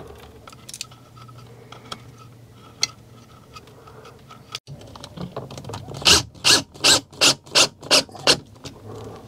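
Cordless drill/driver driving a mounting screw in about eight short, even bursts, roughly three a second, in the second half. Before that, a few faint clicks from screw-on coaxial antenna connectors being handled.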